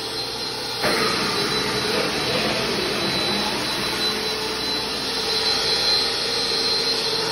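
Air Hog portable carpet-extraction vacuum motor running steadily with a high whine, getting louder about a second in.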